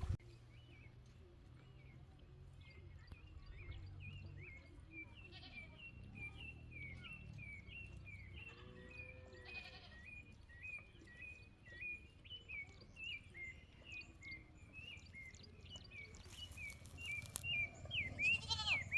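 A bird calling over and over in short high chirps, about two a second, with a goat bleating once about nine seconds in.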